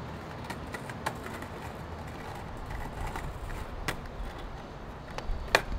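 Skateboard wheels rolling over brick paving: a steady rolling noise with scattered sharp clicks, one louder near the end.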